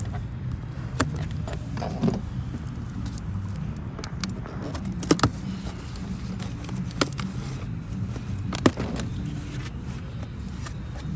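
Intake-kit parts and packaging being handled: scattered sharp clicks and crinkles, the sharpest about five and nine seconds in, over a steady low rumble.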